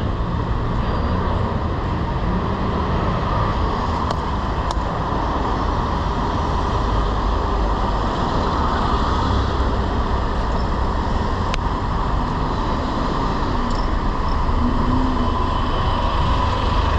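Steady road and traffic noise heard while cycling through city streets, with a constant low rumble and a few faint clicks.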